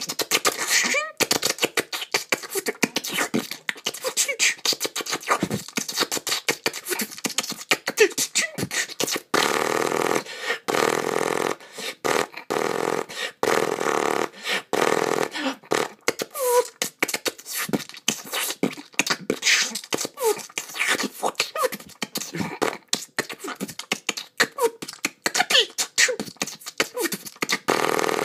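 A person imitating battle sounds with the mouth: rapid rattling bursts like machine-gun fire, longer hissing blasts, and now and then a short whistling glide.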